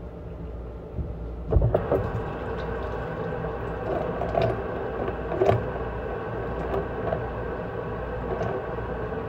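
Kitchen tap water running into a stainless-steel sink, turned on with a knock about a second and a half in, then splashing irregularly as foaming face cleanser is rinsed off.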